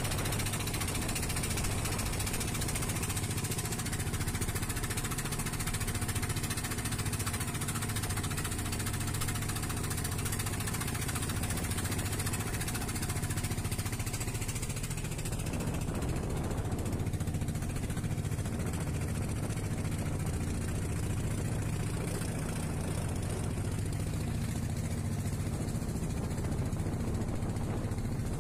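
Small wooden fishing boat's engine running steadily under way, with the rush of water and wind around the hull. The sound changes character about halfway through.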